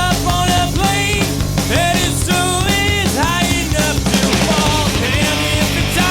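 Loud rock song with a singing voice over bass guitar and drums.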